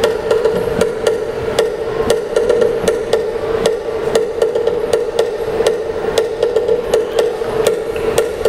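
Live traditional percussion accompanying a Binanog dance: sharp strikes in a quick, steady beat over a constant ringing tone.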